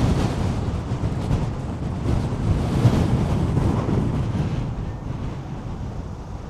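Strong wind buffeting the microphone during a ride, a low, gusting rush that eases a little near the end.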